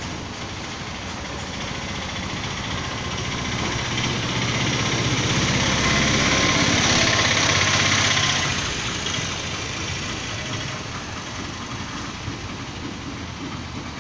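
A motor vehicle's engine running as it goes by, growing louder to a peak about six to eight seconds in and then fading back to a steady rumble.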